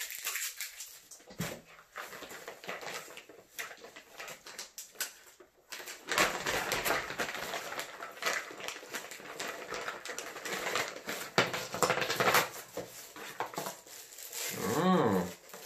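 Plastic packaging crinkling and rustling as it is handled and opened, with scattered clicks and knocks. Near the end there is a brief whine-like pitched sound.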